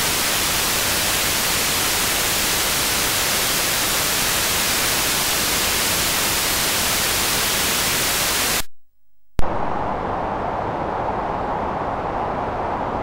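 Noise generator circuit of a TR-808 clone putting out steady white noise, a bright, even hiss. Near the end it cuts out for under a second, then comes back with a pop as darker pink noise.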